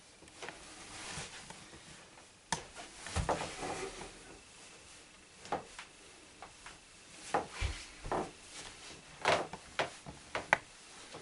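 Hands working a patient's foot and leg during a manual joint manipulation: irregular sharp clicks and rubbing, with two low thumps about three seconds and near eight seconds in.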